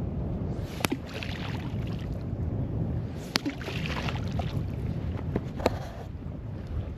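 Wind rumbling on the microphone over water washing, with two hissing surges and three sharp clicks.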